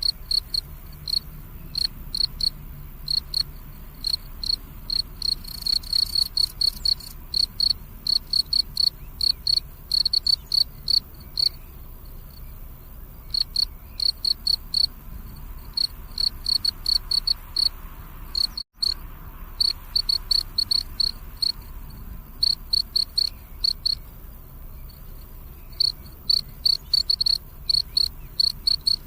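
Crickets chirping at night: rapid high-pitched chirps in runs broken by short pauses. There is a split-second dropout about two-thirds of the way through.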